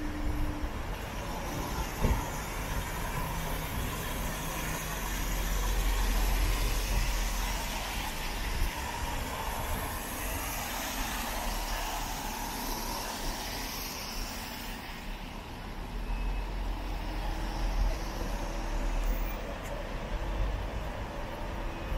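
City street traffic on a wet road: vehicles passing with a steady low rumble and tyre hiss, swelling about five seconds in and again near the end.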